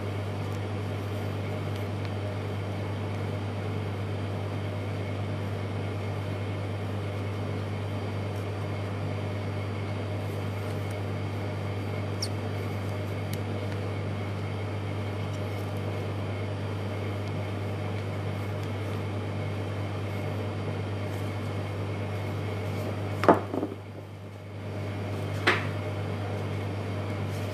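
A steady low machine hum with several faint steady tones above it. Near the end come two sharp knocks, and the hum drops out for about a second between them.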